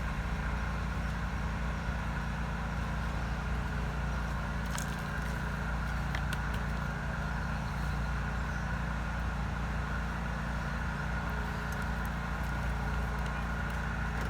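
Steady low mechanical hum with a faint steady whine above it, and a few faint clicks about five and six seconds in.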